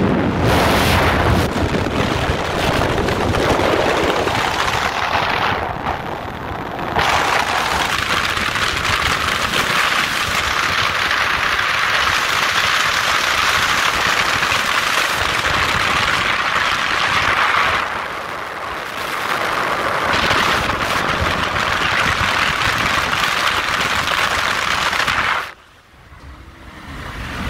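Honda Civic driving at highway speed, heard from inside the cabin: a loud, steady rush of wind, road and engine noise. The rush dips briefly twice and falls off sharply near the end.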